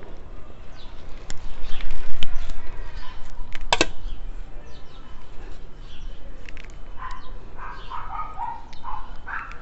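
Potting mix being scooped into a terracotta pot and pressed around succulents by hand: rustling and scraping with a few sharp clicks, the strongest a little under 4 seconds in. Short animal calls in the background near the end.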